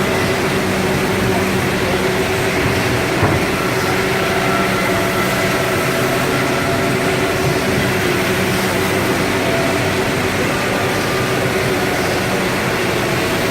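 Anderson Stratos Pro CNC router running: a steady machine drone with several steady whine tones over a haze of noise, and one short knock about three seconds in.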